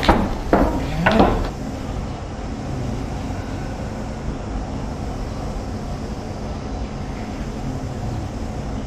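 Steady low background rumble with a faint hum, after a short burst of voice sounds in the first second and a half.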